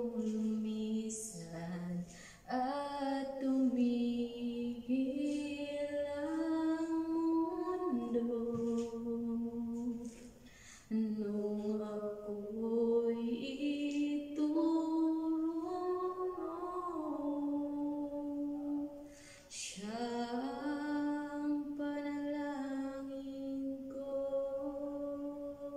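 A woman singing a slow Tagalog ballad unaccompanied into a handheld microphone, holding long, drawn-out notes with short pauses for breath; the last note is held for several seconds.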